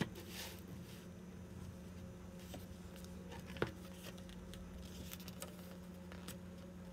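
Faint rustling of stiff photobook pages and glossy photo prints being lifted and turned by hand, with one light tap about three and a half seconds in, over a low steady hum.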